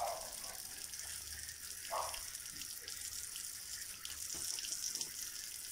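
Water running and trickling into a cardboard box over live mudfish, a steady hiss, with one short mid-pitched sound about two seconds in.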